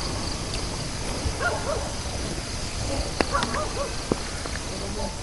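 Steady outdoor wind noise with a few faint, short animal calls in the distance, twice, and a couple of small sharp clicks near the middle.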